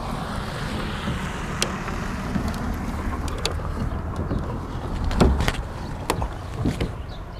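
Shoes and hands knocking against the rear steel ladder and roof of a vintage fire truck as a man climbs up and sits down: a run of sharp knocks and thumps, the loudest about five seconds in, over a low steady rumble.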